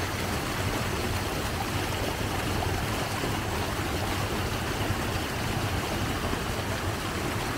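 Muddy rainwater runoff rushing down a small rocky gully in a steady, unbroken roar of water over stones.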